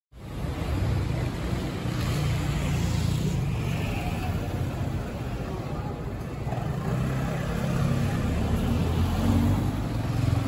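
Steady low rumble of motor vehicle engines and road noise, cutting in suddenly at the start.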